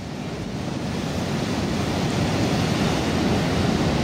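Niagara's American Falls rushing: a deep, even roar of falling water that swells up over the first second or two and then holds steady.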